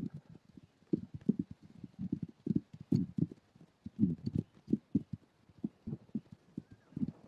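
Horse hooves on turf: an irregular patter of short, dull thuds, several a second, as a stallion and mare shuffle their feet while he mounts her.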